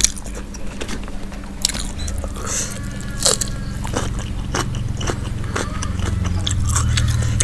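Close-miked chewing and biting of fried chicken: irregular sharp mouth clicks and crunches, over a low steady hum.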